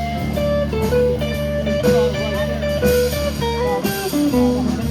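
Blues band playing live: an electric guitar lead of single notes with string bends over bass guitar and drums.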